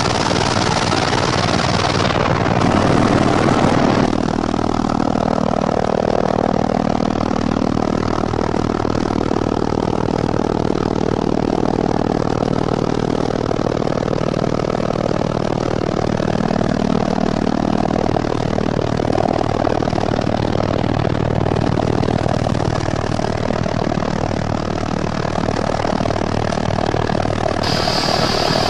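Helicopter engine and rotor noise heard from inside the cabin: a loud, steady drone, with abrupt shifts about two and four seconds in where the footage is cut.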